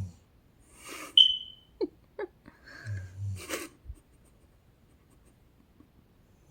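A person snoring in sleep. About a second in comes a noisy breath that ends in a brief loud whistle, then two short squeaks. Around three seconds in there is a low rattling snore and a hissing exhale, followed by a pause of quiet breathing.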